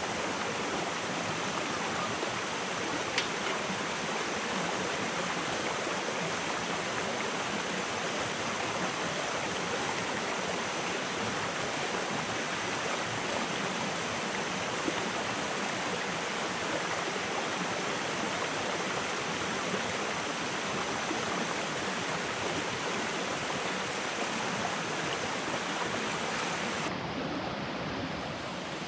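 Steady rushing of a rocky forest stream, water running over stones. A single faint click sounds about three seconds in.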